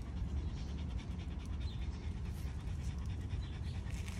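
Puppies panting steadily while playing.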